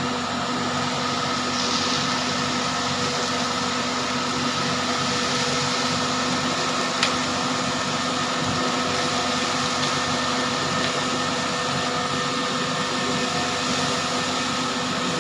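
Fiori self-loading concrete mixer's diesel engine running steadily while its drum turns and discharges concrete down the chute, with one brief click about seven seconds in.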